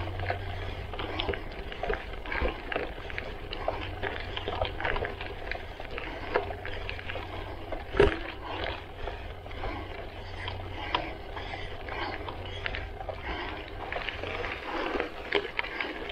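Gravel bike's tyres crunching over hard-packed gravel, with a dense patter of small ticks and rattles from stones and the bike, over a steady low rumble. One sharper knock about halfway through.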